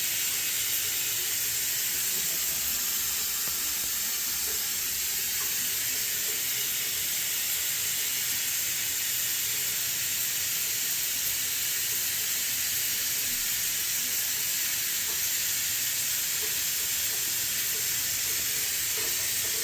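Water running steadily from a Mixet shower valve with a new cartridge, set to full hot while it is tested for whether the temperature control turns the right way; an even, unchanging hiss.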